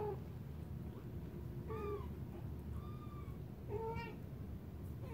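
Three-week-old kittens mewing: about four short, high-pitched mews, roughly one a second.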